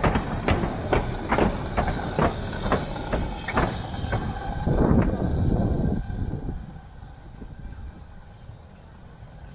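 Narrow-gauge steam locomotive 99 4801-9 moving slowly, its exhaust beating a few times a second over a hiss of steam. About six seconds in the sound drops away as the engine draws off.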